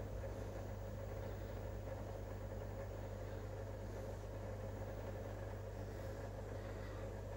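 Steady low electrical hum of running aquarium equipment, with a faint steady higher tone and light hiss over it.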